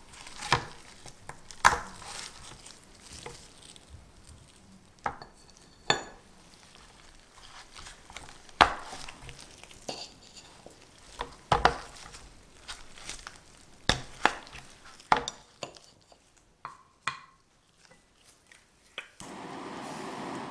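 Hardened chocolate cups being pushed out of a flexible silicone mold and handled, giving irregular sharp clicks and taps. Near the end a handheld butane kitchen torch is lit and its flame hisses steadily.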